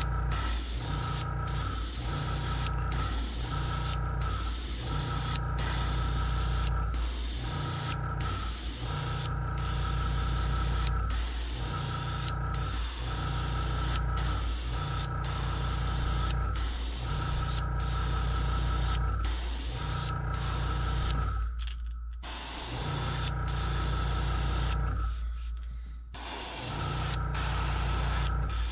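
Airbrush spraying gold paint at turned-down air pressure in short repeated passes: a steady hiss that stops briefly about every one and a half seconds, with two longer breaks near the end. A steady low hum runs underneath.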